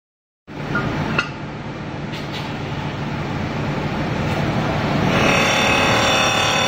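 Automatic polishing machine running, its electric motor and spindle spinning an aluminium pressure cooker body against the polishing wheel: a steady mechanical din with a sharp click about a second in. The noise slowly grows, and about five seconds in a whine of several steady tones comes in over it.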